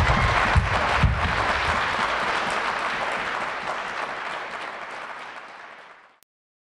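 Audience applauding, loudest at first and slowly dying away, then cut off suddenly about six seconds in.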